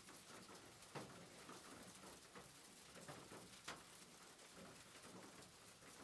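Faint, steady rain pattering, with many individual drops ticking; two drops hit more sharply, about a second in and near four seconds in.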